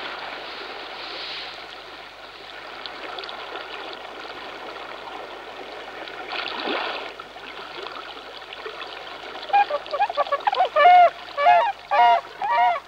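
Tundra swans (Bewick's swans) giving a rapid series of loud honking calls, about three a second, starting about two-thirds of the way in. Before the calls there is a steady rushing hiss with a brief swell near the middle.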